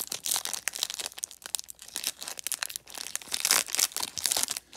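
Shiny plastic wrapper of a baseball card pack crinkling as gloved hands pull it open at the sealed top. The crackles are irregular throughout and come thickest and loudest about three seconds in.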